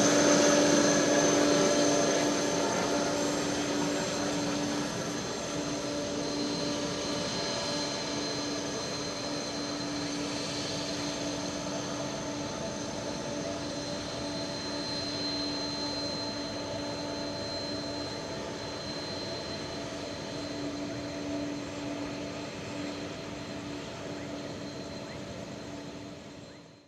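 Jet airliner engines running steadily, a broad rush with a constant high whine and a lower hum, easing off over the first few seconds. The sound cuts off abruptly at the end.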